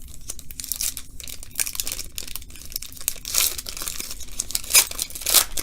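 Glossy baseball cards being slid off a stack and flipped over in the hands: irregular dry swishes and scrapes of card against card, the loudest few near the end.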